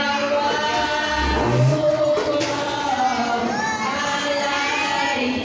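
A group of children singing together, with music playing along.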